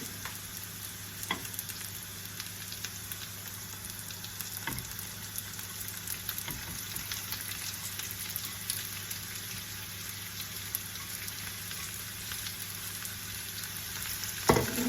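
Onions, pepper and garlic sizzling in olive oil in a pan on low heat, a steady fine crackle. A few utensil knocks against the pan, the loudest near the end.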